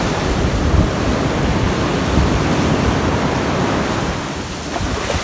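Ocean surf washing up the shore, a steady rushing hiss, with wind rumbling on the microphone.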